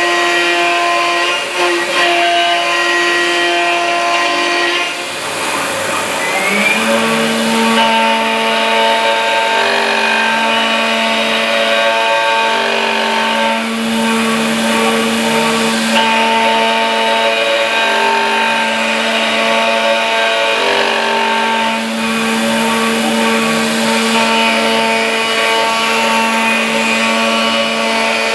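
CNC mill thread-milling a bore in a metal block: the spindle and axis drives run with a steady whine of several tones over the hiss of cutting. About five to seven seconds in, the tones shift pitch with a short rising glide, then hold steady as the cutter works around the thread.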